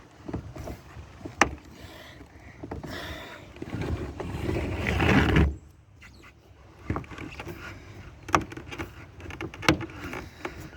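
Snap-in vinyl glazing strips being handled and pressed into a window frame: a sharp click, a rubbing scrape that builds and cuts off suddenly about five seconds in, then several more clicks and knocks.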